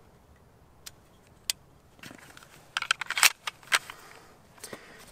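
Clicks and scrapes of a SIG Pro SP2340 pistol being put back together: the slide, with its recoil spring, is handled and slid onto the polymer frame. Two single clicks come first, then a cluster of clicks and short sliding scrapes about three seconds in, and a few lighter clicks near the end.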